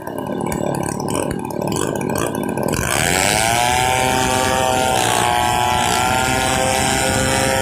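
Stihl 070 two-stroke chainsaw engine running low and uneven for the first few seconds, then revving up about three seconds in and holding a steady high speed.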